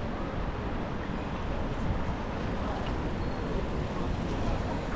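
Steady city traffic noise heard from a moving bicycle, a low, even rumble with no single standout event.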